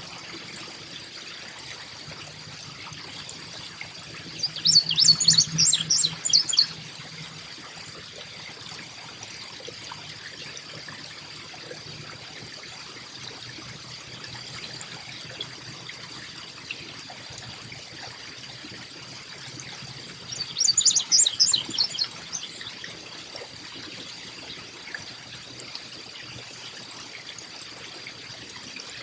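Two bursts of rapid, high chattering songbird calls, each about two seconds long, one near the start and one about two-thirds of the way through, over a steady trickle of running water and a faint, steady high-pitched tone.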